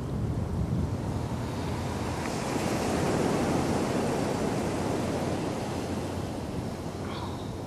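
Steady rushing outdoor noise with a low rumble underneath, swelling about three seconds in and easing off toward the end.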